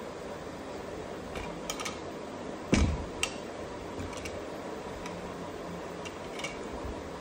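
A baby handling toys on a bed: one dull thump a little under three seconds in, then a lighter knock, with scattered faint clicks and taps of toys, over a steady background hiss.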